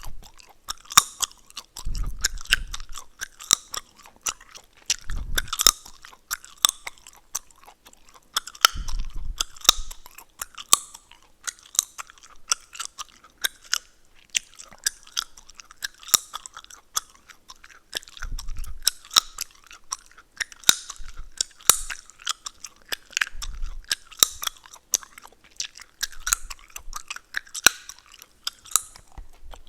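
Close-miked chewing gum, wet, irregular clicks, snaps and crackles of the gum with an occasional low thump, going on throughout.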